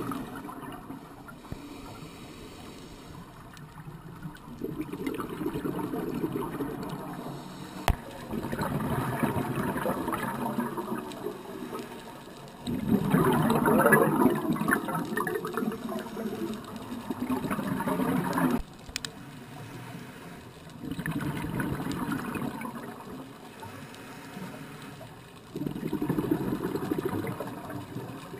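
Scuba regulator exhaust bubbles gurgling underwater, one burst per breath out: about six bursts a few seconds long with quieter stretches between, the loudest about halfway through and stopping abruptly.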